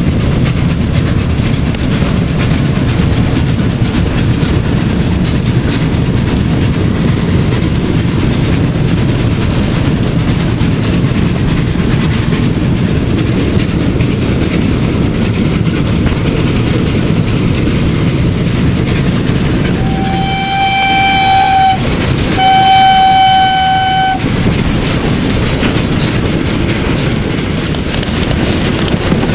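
Steam locomotive Ol49-59 running at speed, heard from its footplate as a steady loud din, with its whistle sounding two long blasts about two-thirds of the way through.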